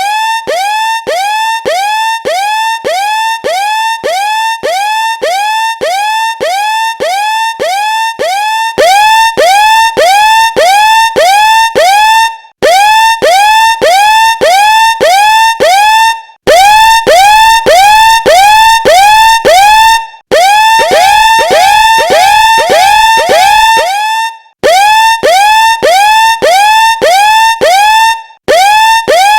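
Very loud electronic alarm tone: a quick rising siren-like yelp repeated about three times a second. It steps up in loudness about nine seconds in and breaks off for a moment roughly every four seconds after that.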